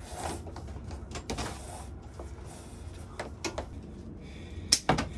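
Handling noises of electrical cable being pulled and worked against wooden wall studs: scraping and rustling with scattered small clicks, and two sharp clicks near the end.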